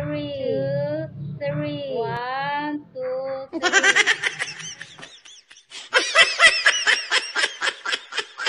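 A high-pitched sing-song voice over a low steady hum for about three seconds, then a burst of rapid, high-pitched giggling laughter that sounds like an added laughter sound effect.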